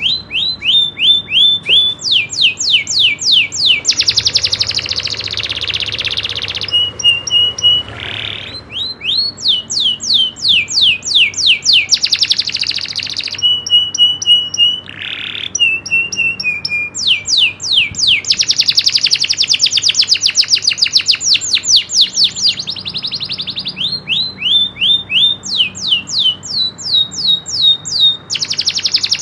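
Domestic canary singing non-stop, a long song of fast rolling trills of quick repeated sweeping notes, broken by a few short held whistles near a quarter and half of the way through.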